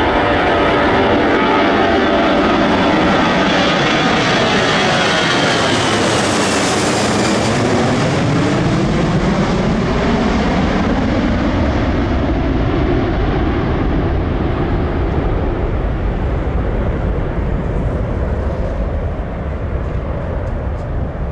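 Airbus A340-300's four CFM56 turbofan engines at take-off thrust as the jet passes low overhead in its climb: loud, steady jet noise with tones that sweep down in pitch as it goes over, about six to eight seconds in, leaving a deep low rumble as it climbs away.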